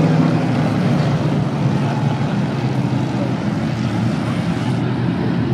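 A pack of IMCA SportMod dirt-track race cars running around the oval, their V8 engines blending into one loud, steady wall of engine noise.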